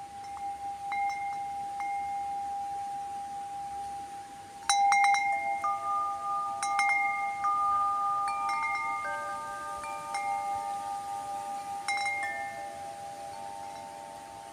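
Tubular wind chime struck by its wooden striker disc: a few light strikes, then a louder cluster about five seconds in and more strikes after, the tubes ringing on in several overlapping tones that slowly fade near the end.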